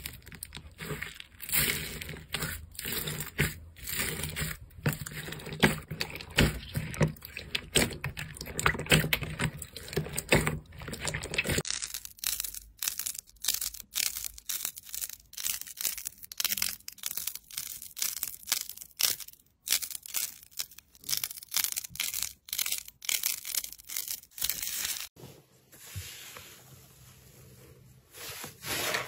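Slime being squeezed and poked by hand: a dense run of crackling, popping clicks and squelches. The sound changes in character about twelve seconds in and again near the end, where it turns quieter.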